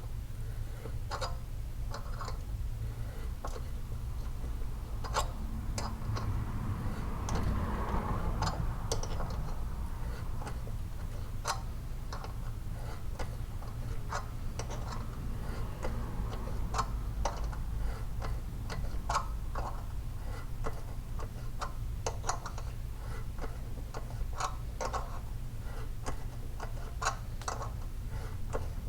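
An M12 hand tap cutting threads into the drilled-out side-cover bolt hole of a Predator 224 engine, giving irregular sharp clicks and ticks as the tap is turned and chips break, over a steady low hum.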